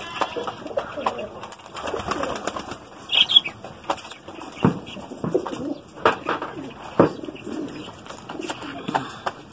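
Domestic pigeons cooing, with wings flapping as birds take off and land. A few sharp clicks stand out about halfway through.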